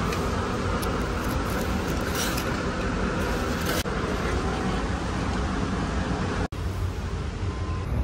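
Steady ambience of a large warehouse store: a low rumble and hiss with faint background voices, cut off sharply for an instant twice, about four and six and a half seconds in.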